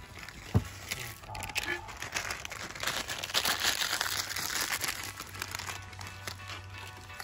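Plastic instant-ramen bag crinkling as crushed dry noodles are shaken out of it into an aluminium mess tin, the crinkling loudest and busiest in the middle of the stretch.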